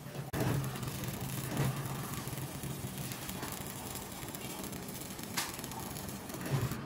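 Stick-welding arc crackling and sizzling steadily as a bead is run along the seam of a steel tank. It gets sharply louder about a third of a second in.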